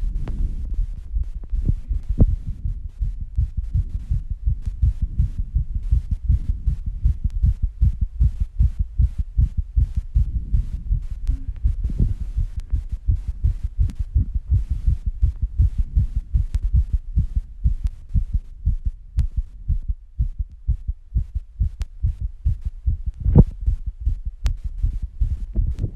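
Human heartbeat picked up at close range, a rapid, even run of low thumps: a heart beating fast after squats and rebreathing. A louder, sharper knock sounds near the end.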